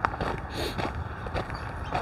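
Footsteps crunching on a gravel trail at a steady walking pace.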